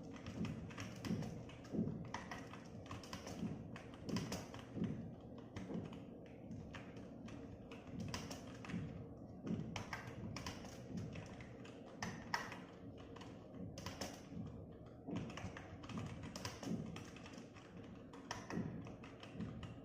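Computer keyboard being typed on, keys clicking in a quick, uneven run with a few heavier strokes now and then.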